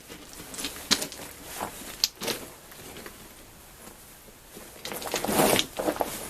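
Footsteps crunching and scuffing on rocky ground: a few separate steps in the first couple of seconds, then a longer, louder scuffle about five seconds in.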